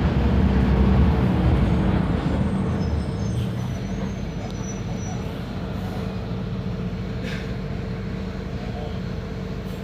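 Mercedes-Benz OF 1519 bus engine running, loud for about three seconds and then dropping to a lower, steady hum as it eases off. A short hiss of air comes about seven seconds in.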